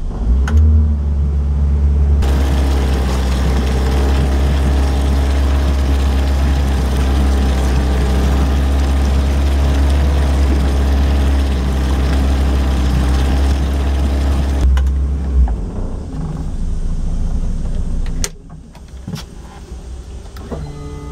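A Nissan 90 hp four-stroke outboard running with a steady low drone. From about two seconds in, rushing water and wind join it while the boat is underway. About fifteen seconds in, the engine sound falls away to a much quieter hum.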